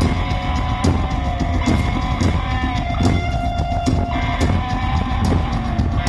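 Live rock band playing loud amplified music through a PA: electric guitars holding sustained notes over a steady drum-kit beat, heard from the audience.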